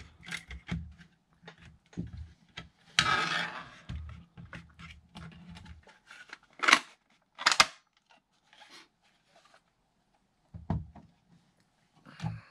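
3D-printed PLA plastic folding gun shell being folded closed by hand: plastic parts clicking and rubbing, with a scraping slide about three seconds in and two sharp clicks in the middle as it snaps shut. A couple of plastic knocks against the wooden desk come near the end.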